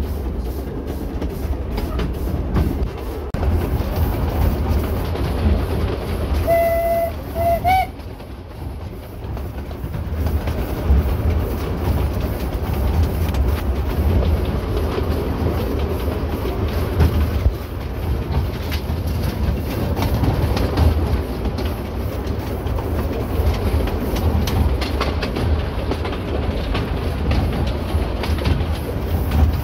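1925 Vulcan steam locomotive hauling its train, with a steady low rumble and clatter of wheels on the rails. About six and a half seconds in, its steam whistle gives one short blast, then two quick rising toots, for the road crossing ahead.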